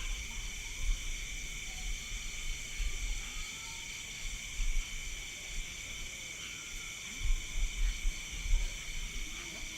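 Night insect chorus: crickets and other insects trilling steadily in several high-pitched layers, one of them pulsing evenly. Irregular low rumbles come and go, loudest near the end.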